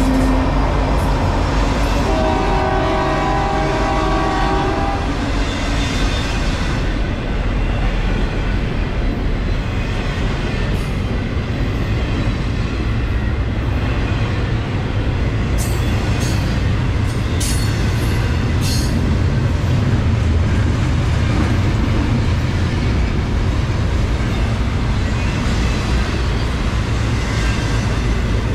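CN double-stack intermodal freight train passing close by, its trailing diesel locomotive and then container cars rumbling and clattering steadily over the rails. A train horn sounds as it begins and again from about two to five seconds in, and a few sharp metallic clicks come about halfway through.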